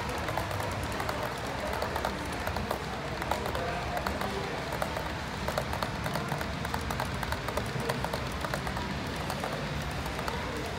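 Model freight train rolling past on the layout's track, its wheels giving a stream of light, irregular clicks over a steady background hum.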